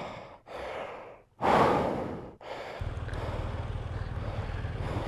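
Heavy, hard breaths of a person straining to lift a dropped motorbike: three forceful exhales in the first couple of seconds, the third the loudest. From about three seconds in, a steady low hum sets in.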